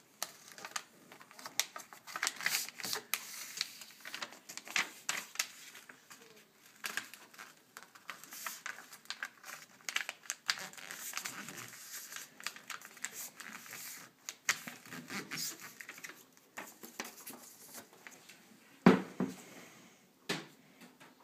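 A sheet of paper being folded by hand into a paper airplane: crinkling and rustling, with many short, sharp scrapes as the folds are pressed and creased flat. Near the end comes a loud thump, then a smaller knock.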